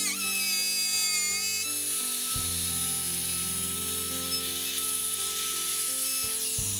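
Background music mixed with the steady whine of a compact trim router cutting a recess in wood.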